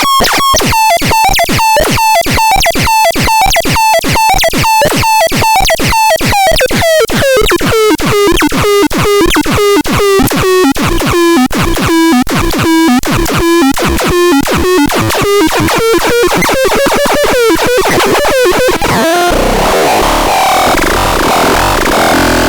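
Synthesizer sound demo: a rapid stream of short, bending electronic notes whose pitch slowly sinks and then climbs back up. About 19 seconds in it switches to a dense, noisy, distorted texture with a low pulse underneath.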